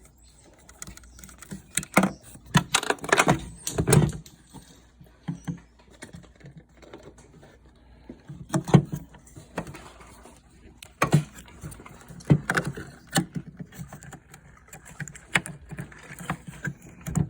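Irregular clicks, knocks and rattles of a rear turn-signal bulb socket being twisted out by hand and the bulb pulled and swapped for an LED bulb.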